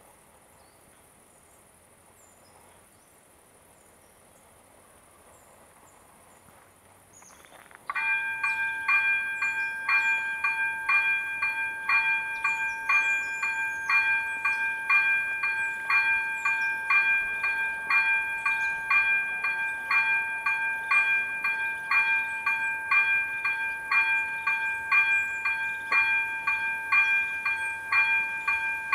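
Quiet outdoor background, then about eight seconds in the level crossing's electronic warning bell (ZV-02) starts and rings on steadily at about two strokes a second. It signals that the crossing has activated for an approaching train.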